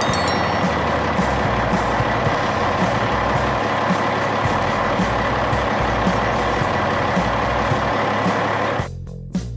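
Heavy truck engine sound effects running steadily with a steady high-pitched tone, mixed with background music. The sound drops out briefly near the end.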